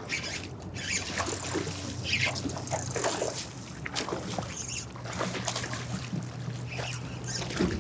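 Water splashing and sloshing against rocks in short, irregular bursts as a hooked snook is brought to the water's edge. A steady low hum runs underneath.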